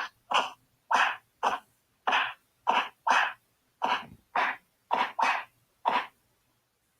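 Vocal punch sound effects made with the mouth: about a dozen short, sharp breathy bursts in quick, uneven succession, stopping about six seconds in.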